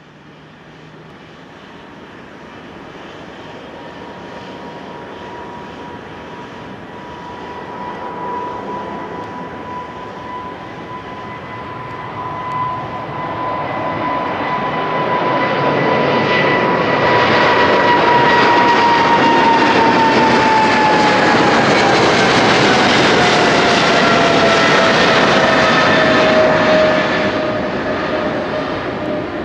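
A Boeing 777-300ER's two GE90-115B turbofans at takeoff power, a roar with a steady whine that grows louder as the airliner rolls and climbs out. The whine falls in pitch as it passes, and the noise drops off near the end.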